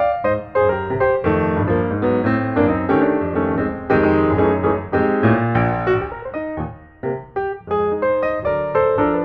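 Background piano music: a melody of short notes over a lower accompaniment.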